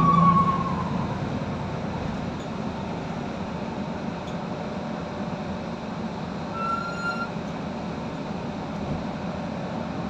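Steady engine and road noise inside a Solaris Urbino 18 III articulated diesel bus under way. A falling tone fades out in the first second, and a short high beep sounds about seven seconds in.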